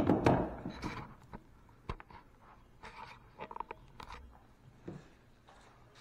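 A burst of clattering in the first second, then scattered knocks and clicks: tools and metal parts being handled on a wooden workbench.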